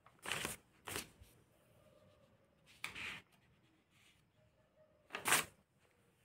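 Paper pages of a thick notebook being turned by hand, four quick rustles, the last the loudest near the end.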